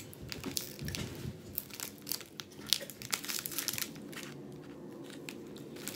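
Plastic biscuit-pack wrapper being torn open and crinkled: a dense run of sharp crackles over the first three seconds or so, then fainter rustling.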